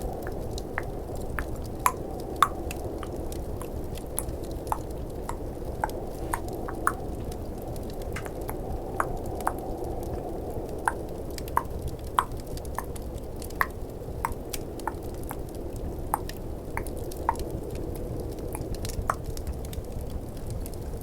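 Tongue clicking close to the microphone: sharp, irregular clicks, a few a second, over a steady low rush of snowstorm and fireplace ambience.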